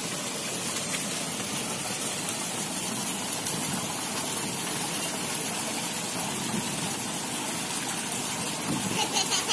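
Steady rush of water from wall-spout fountains pouring into a swimming pool.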